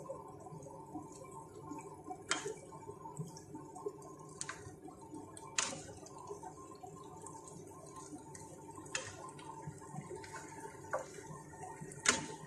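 Cooking utensils knocking against the side of a pan now and then as cooked spaghetti noodles are tossed and mixed: about six sharp clacks, the loudest near the end, over a low steady background noise.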